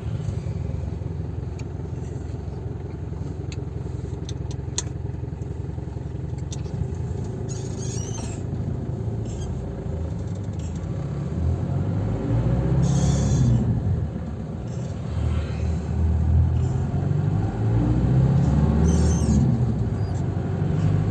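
Isuzu Panther engine and road noise heard from inside the moving car. The engine hum climbs in pitch as the car accelerates, drops back about two-thirds of the way through, then climbs again. The engine is in one of its smooth-running spells.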